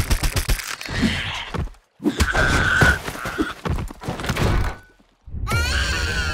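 Cartoon fight sound effects: rapid runs of thuds and hits, broken twice by short silences, then a rising pitched cry about five and a half seconds in.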